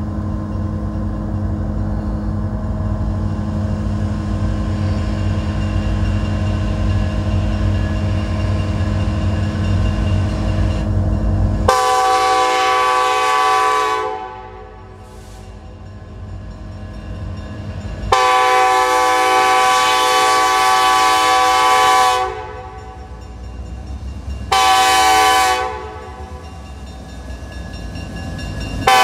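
Kansas City Southern freight locomotive's multi-note air horn sounding the grade-crossing signal: a long blast about 12 seconds in, a longer one, a short one, and the final long blast starting at the very end. Before the first blast there is a steady low rumble as the train approaches.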